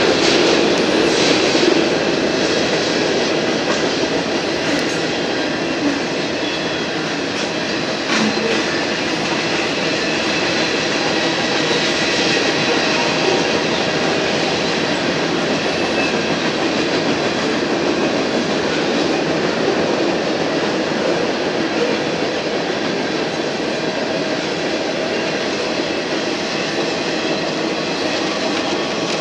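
Union Pacific manifest freight train's cars rolling past: a steady, continuous noise of steel wheels on the rails, with a few faint clicks.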